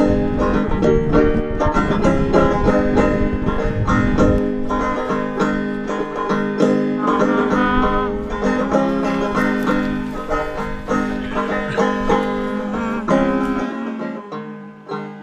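Five-string banjo picked in a quick run of ringing notes, fading out near the end.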